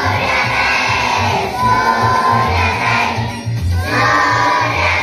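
Large group of schoolchildren singing together in unison, loud, with held notes and a brief break between lines about three and a half seconds in.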